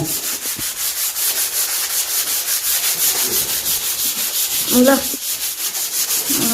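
Dried wall plaster being sanded down: a steady, high scratching hiss pulsing in a fast, even rhythm.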